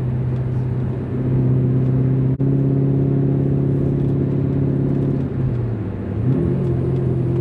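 Chevrolet 6.0 L LS V8 (L77) in a Porsche 944 S2 running steadily under way on the road. About five seconds in, the engine note dips and then climbs back up.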